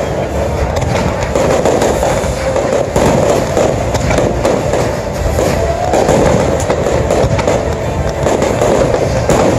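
Fireworks barrage: many bangs and crackles over a constant loud rush of burning fountains, with show music playing underneath.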